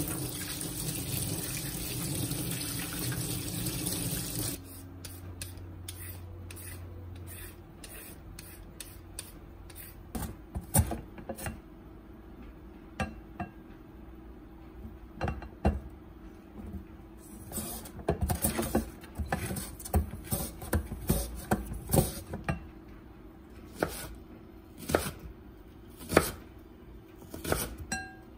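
Kitchen tap running over a carrot in a stainless steel sink, shut off about four seconds in. Then scattered strokes of a plastic julienne slicer. In the second half, a kitchen knife chops the carrot into thin strips on a wooden cutting board in quick, uneven strokes.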